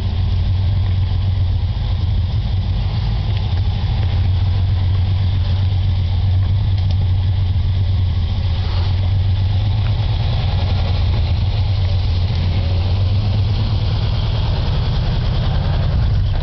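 Off-road 4x4 engines running at a low, steady idle, a constant low hum, as the vehicles crawl down a small rock ledge.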